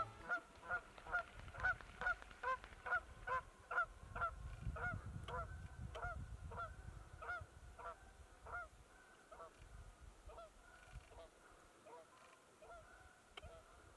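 Canada goose honking over and over, about two to three honks a second, the calls slowing and growing fainter about halfway through until only faint honks remain.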